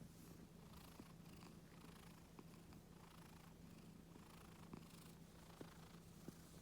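Scottish Fold cat purring, a faint, steady low rumble, the contented purr it gives while being stroked on the neck and ears.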